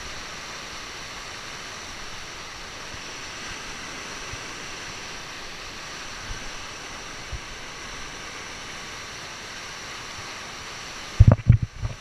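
Whitewater of a large river rapid rushing steadily. Shortly before the end, a quick cluster of loud, low thumps as a hand knocks against the camera.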